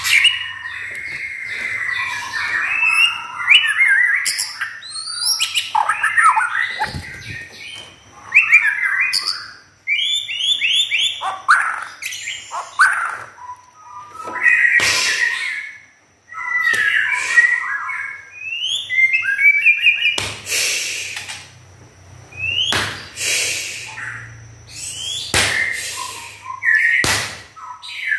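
Caged white-rumped shama (murai batu) singing a long, varied song, phrase after phrase of whistles, trills and short chattering notes.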